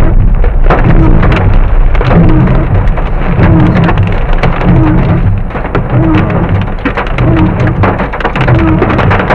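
Hail pelting a car's roof and windscreen, heard from inside the car: a loud, dense clatter of hits over a deep rumble.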